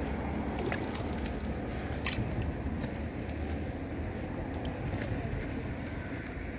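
Steady low wind rumble on the phone's microphone over rippling water, with a few faint clicks.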